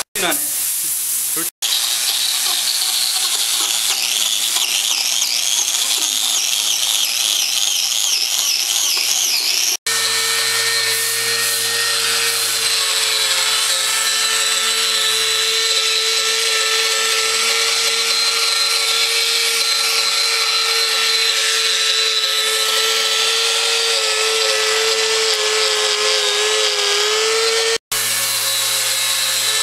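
Electric angle grinder fitted with a wood-carving cutter, running and cutting into a log: a loud grinding noise with a high motor whine that wavers in pitch for the first ten seconds or so and then holds steady. The sound drops out abruptly for an instant a few times.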